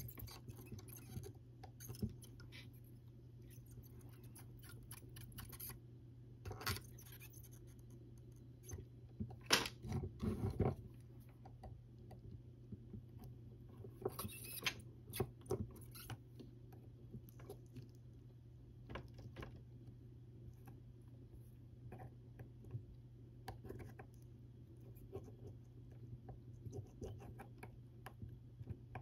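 Faint, scattered clicks, taps and scrapes of small tools and battery parts being handled on a workbench, with a louder cluster about ten seconds in, over a steady low hum.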